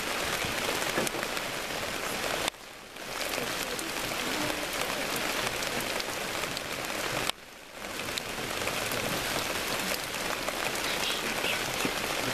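Steady rain falling, an even hiss with scattered drop ticks. Twice, about two and a half and seven seconds in, the sound drops out sharply and swells back within about half a second.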